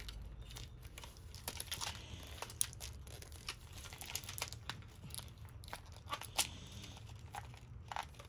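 Hands working the red plastic cap loose from a clear plastic candy container: faint, scattered small plastic clicks and crinkles.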